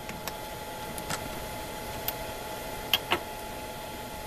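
Several light metallic clicks and taps from hands working the rotary table's handles and the lathe-style chuck on a mini mill, two of them close together near the end, over a steady machine hum.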